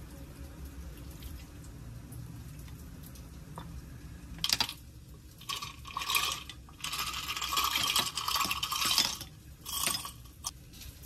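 Kitchen handling sounds: a low steady hum at first, then a few clinks and knocks of dishes and utensils, with a couple of seconds of pouring liquid in the middle.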